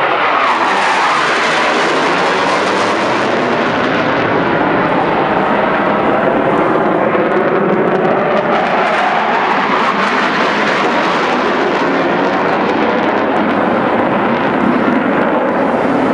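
A pair of RAF Tornado jets passing over, a loud, steady jet noise that swells up just before and holds throughout, with a slowly shifting, phasing tone.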